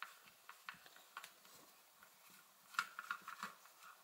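Faint scattered clicks and ticks of a Phillips screwdriver turning a screw out of a plastic power-drill housing, with a small cluster of clicks about three seconds in.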